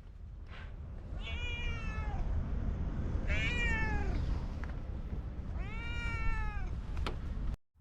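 Orange tabby cat meowing three times, each meow rising then falling in pitch, over a steady low background hum.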